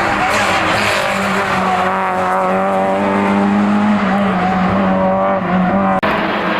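Race car engine running at high revs, holding a nearly steady pitch with slight wavers just after a falling-pitch pass. The sound cuts off suddenly near the end.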